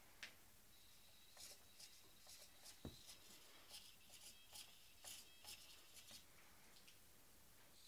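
Servos of an Align T-Rex 450SE RC helicopter whirring faintly in short chirps as they move under transmitter control, with a faint steady high whine over the first few seconds.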